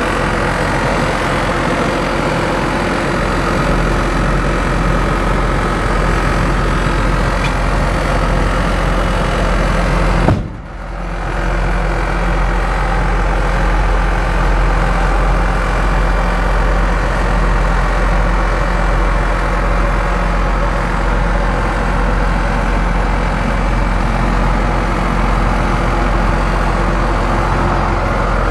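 1999 Ford F-Series truck engine idling steadily, with a brief click and short dip in level about ten seconds in.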